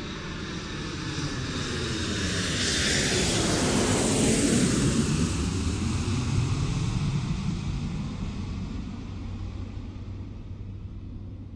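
An airplane flying past. It builds to its loudest about four to six seconds in, falls in pitch as it goes by, then fades away.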